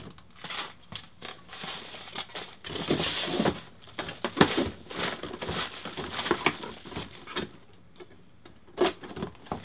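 Unboxing noises: foam packing pieces scraping out of a cardboard box and a plastic bag crinkling as a car stereo head unit is unwrapped, in irregular rustles and small knocks.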